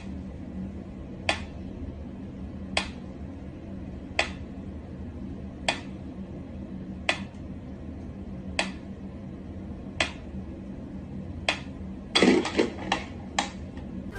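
Sharp single taps or clicks, evenly spaced about a second and a half apart over a steady low hum, then a quick flurry of louder taps near the end.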